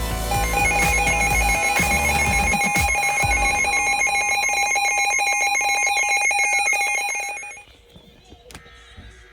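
Electronic alert tone from an emergency-alert receiver, rapidly warbling between two high pitches over a steady lower tone for about seven seconds, then cutting off abruptly to faint hiss.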